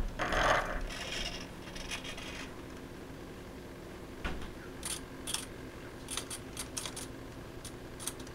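Rustling and rubbing noise in the first two seconds or so, then a scatter of small, sharp clicks from about four seconds on.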